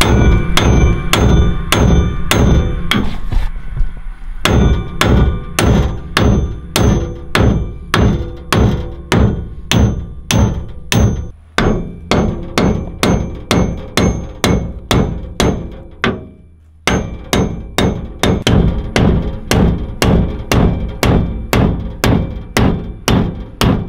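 A hammer striking steel, about two ringing blows a second with a few short pauses, knocking the old drum-brake bracket off a Dana 70 rear axle housing.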